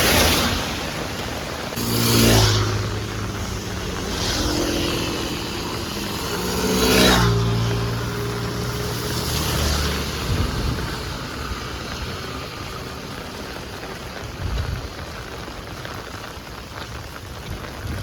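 Heavy rain falling steadily, with vehicles swishing past on a wet road four or five times in the first ten seconds, each swelling and fading.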